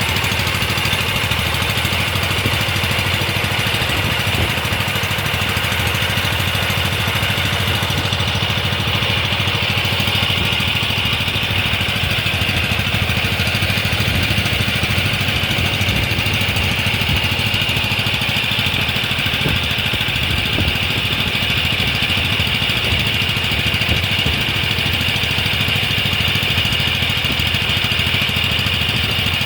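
An engine running steadily at an even speed, with a steady high-pitched whine above it.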